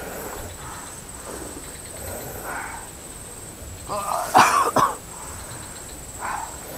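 A man coughing harshly: a loud strained cough about four seconds in, followed right away by two sharp coughs, with fainter throat sounds at about two and a half and six seconds.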